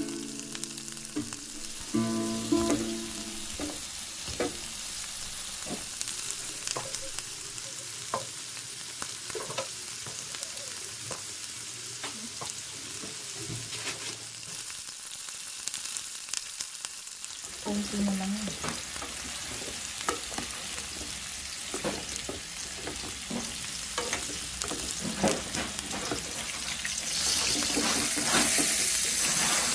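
Shrimp frying in oil in a nonstick pan with a steady sizzle, and many short clicks and scrapes from a spatula stirring them. A louder hiss rises near the end.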